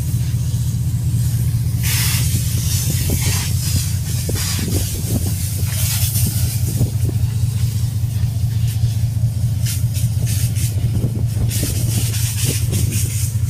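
Steady low rumble of a ship's machinery, with the hiss of a fire-hose water jet spraying against the deck and bulkhead coming and going over it.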